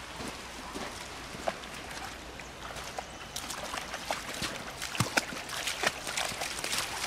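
Shallow river water running over stones, with splashing and sharp clicks of pebbles as a dog wades into the shallows, the clicks coming more often from about halfway through.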